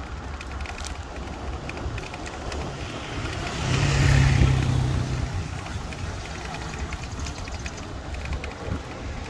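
Street traffic with a steady low rumble. A motor vehicle passes close about four seconds in, its engine tone and tyre hiss swelling and fading over about two seconds.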